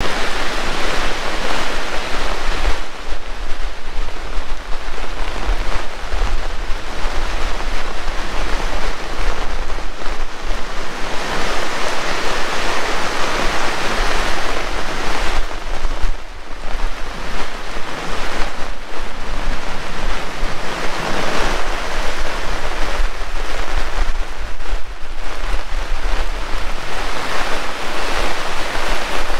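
Heavy tropical rain pouring down, a dense steady hiss that swells and eases every few seconds, with low wind rumble on the microphone.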